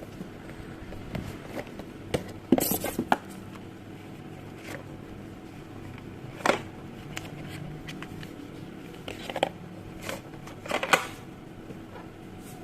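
Packaging being handled during a phone unboxing: a few short scrapes and clicks, the loudest about two and a half seconds in, with others near the middle and toward the end.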